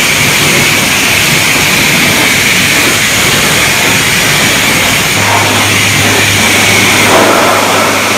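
Car wash pressure wand blasting water onto the plastic bodywork of a side-by-side, a loud, steady hiss of spray. A low, steady hum joins about five seconds in.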